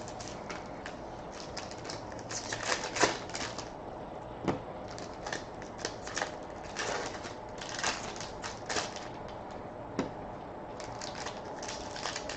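Irregular clicks, taps and rustles of hands handling trading-card boxes, packaging and cards.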